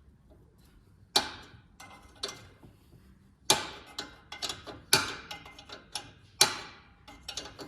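Sharp, irregular metallic clinks and knocks of hand tools and steel suspension parts, each with a short ring, as the front brake caliper bracket bolts are worked loose.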